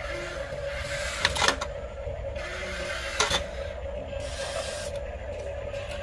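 Huina RC excavator's small electric motors and gearboxes whirring steadily as the boom and bucket swing down, with two sharp knocks or clicks about a second and a half and three seconds in.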